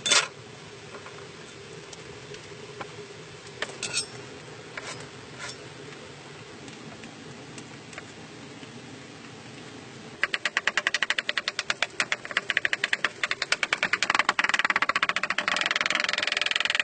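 Cleaver cutting avocado on a wooden cutting board: a sharp knock at the start and a few separate cuts about four to five seconds in, then from about ten seconds in a fast run of chopping strokes, several a second, as the avocado is diced.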